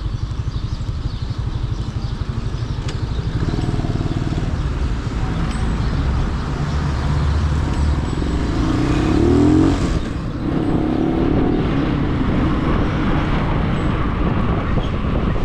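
Motor vehicle engine running with a steady low pulsing. It rises in pitch around eight to nine seconds in, dips briefly about ten seconds in, then runs steadily again.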